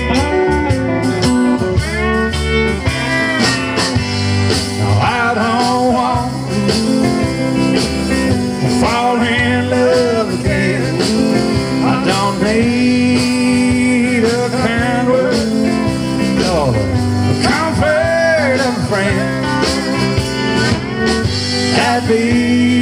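Live country band playing an instrumental break: a lead line of bending, sliding notes over drums, electric bass and strummed guitars.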